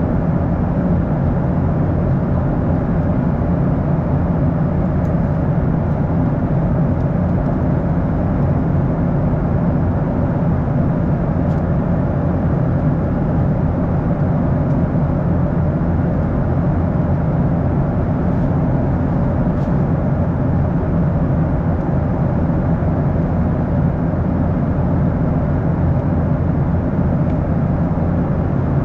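Steady cabin noise inside a Boeing 737-800: an even, low drone of the CFM56 engines and rushing air, with no change in pitch or level.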